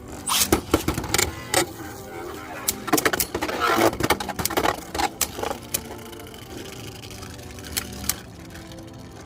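Hard plastic clicks and clacks of Beyblade tops and launchers being handled, a quick irregular run of them, thinning out after about six seconds.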